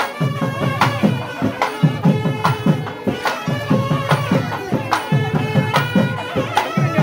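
Traditional South Indian folk music: a piped melody over a steady held drone, with fast, continuous drumming.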